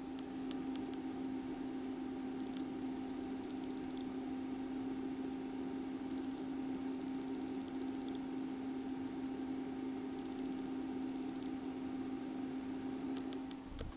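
Small electric cooling fan running steadily: a constant low hum with an airy whir, which stops near the end.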